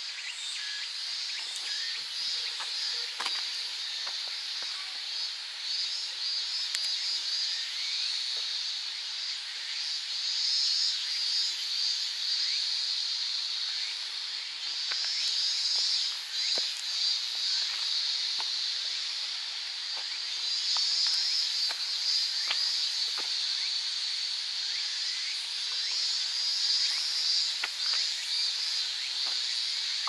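Chorus of insects shrilling: a steady, high-pitched hiss that swells and fades four times, with fainter, higher pulsing chirps above it.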